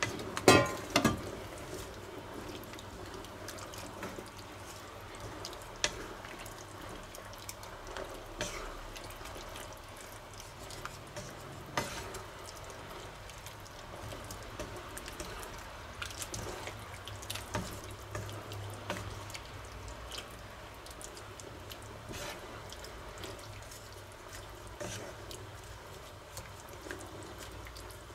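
Sauce with meat and vegetables simmering and bubbling in a wok-style pan, while a wooden spatula stirs and scrapes it, tapping the pan now and then. A few louder knocks come about a second in.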